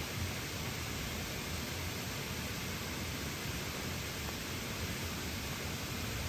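Small waterfall: water rushing and splashing, a steady, even hiss.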